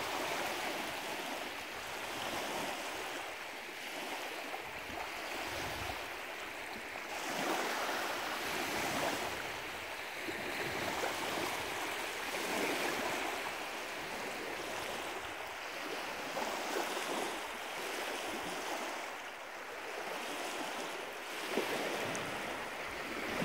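Small wind-driven waves lapping and washing against a lake shore, swelling and easing every couple of seconds.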